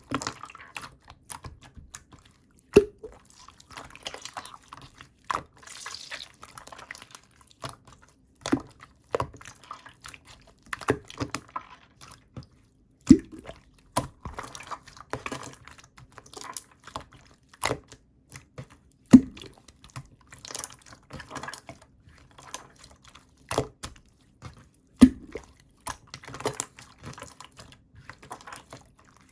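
Clear, chewy jelly-type water slime being squished and pressed by hand: a steady stream of irregular sticky clicks and wet pops, with a louder snap every several seconds.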